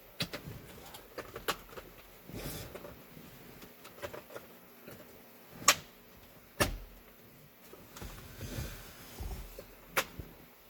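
Plastic steering column cover panels being handled and fitted back together: a run of light clicks and knocks with handling rustle between them. The sharpest snaps come about halfway through, a second later, and again near the end.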